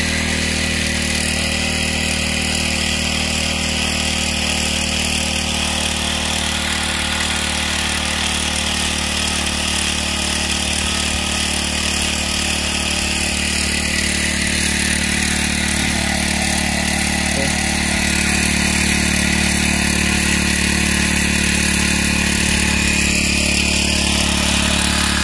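Small engine of a portable power sprayer running steadily, driving the pump that pushes weedkiller through a long hose to a spray gun.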